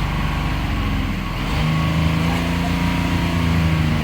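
Freshly rebuilt 5.9-litre Cummins common-rail inline-six turbodiesel revved up toward the redline, its pitch settling and holding steady at high rpm from about a second and a half in.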